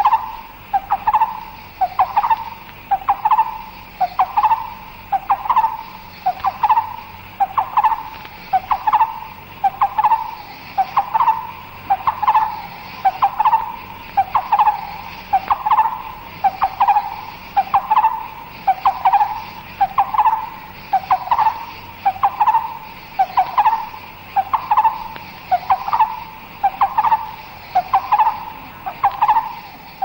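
Müller's barbet (black-browed barbet), a mountain barbet, calling: the same short phrase repeated steadily about once a second, over a continuous hum of insects.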